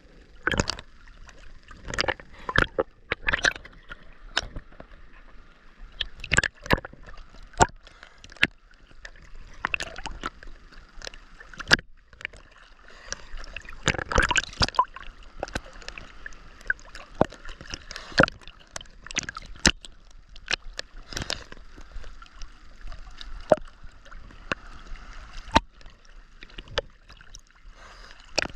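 Ocean water splashing and sloshing around a swimmer, with irregular sharp splashes of about one or two a second over a low wash.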